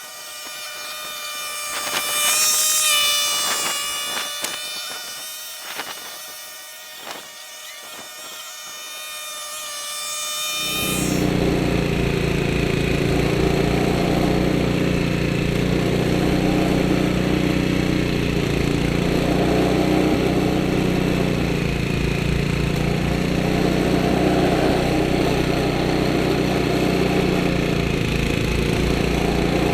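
A high buzzing whine with a few clicks, then about eleven seconds in an abrupt change to a 1976 Ariens Sno-Throw snowblower's five-horsepower Tecumseh Snow King engine running steadily up close.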